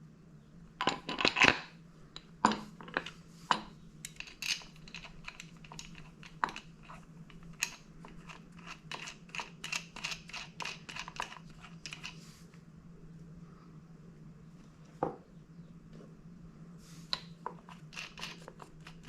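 Metal clicks and clinks from handling a coilover's upper shock mount and hardware on the strut. Two loud clinks come about a second in, then a long run of lighter, quicker clicks, and a few more near the end, over a steady low hum.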